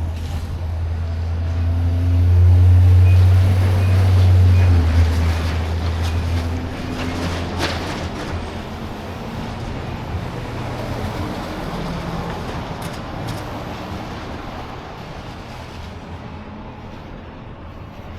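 Motor vehicle driving past: a low engine drone swells to its loudest a few seconds in, then fades away, leaving traffic noise that slowly dies down.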